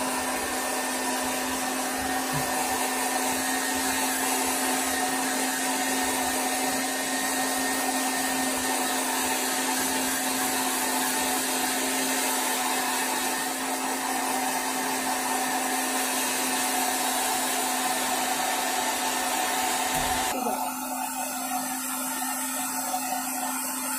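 Handheld electric hair dryer running steadily, blowing on a wet cat's fur to dry it: an even airy hiss over a steady motor hum. About twenty seconds in the sound changes suddenly, with much of the high hiss dropping away.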